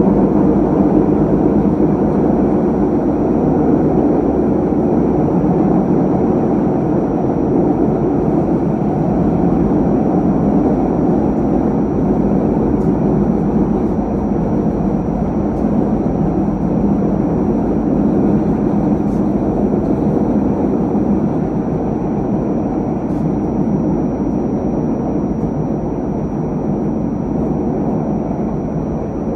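Steady running noise of a Cleveland RTA Breda light rail car, heard from inside the car: wheels rumbling on the track with the motors under it, and a faint steady high-pitched whine. It eases slightly near the end.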